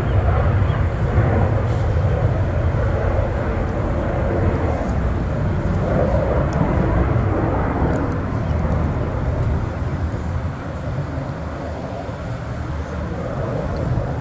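Small business jet's engines at takeoff power as it lifts off and climbs away: a steady rushing noise that slowly fades over the last few seconds.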